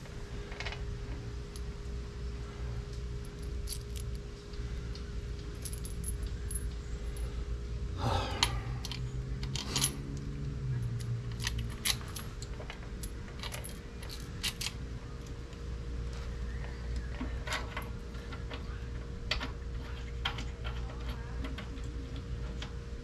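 Scattered metallic clinks and rattles of bolts, washers and a coil-over rear shock absorber being handled and fitted by hand, with a louder scraping clunk about eight seconds in. A steady faint hum runs underneath.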